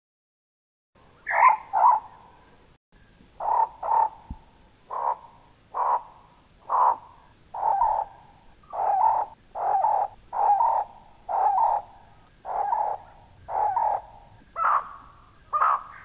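Slowed-down bulbul calls, dropped in pitch to stand in for a Microraptor's voice. A double call about a second in is followed by a steady series of about fifteen short calls, a little more than one a second, the last two reaching higher.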